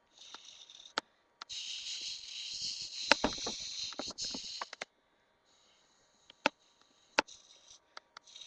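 Urine stream splashing against a brick wall: a spattering hiss that comes and goes, broken by sharp clicks.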